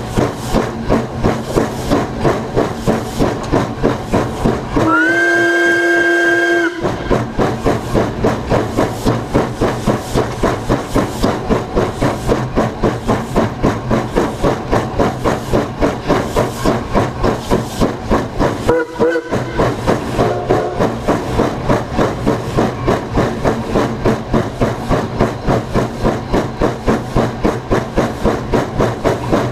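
Narrow-gauge steam locomotive 463, a K-27 2-8-2, working ahead with an even beat of exhaust chuffs about two a second. Its steam whistle gives one long steady blast of about two seconds around five seconds in, and a short toot about two-thirds of the way through.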